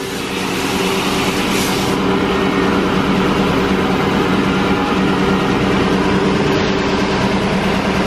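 Wide-belt metal deburring sander running steadily while cut metal parts feed through it on its conveyor: an even, loud hum with a hiss over it.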